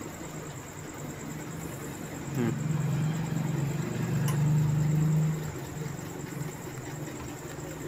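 Motor vehicle engine running steadily nearby, growing louder about two and a half seconds in and easing off after about five seconds, with one light click in the middle.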